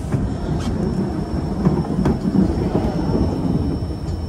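White Pass & Yukon Route passenger train rolling along the track: a steady low rumble with a few faint clicks.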